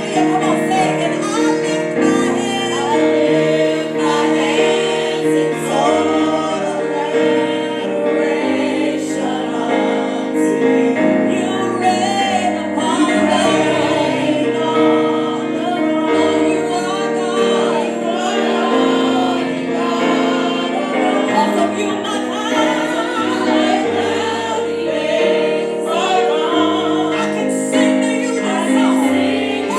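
Gospel choir singing with instrumental accompaniment, sustained chords under the voices.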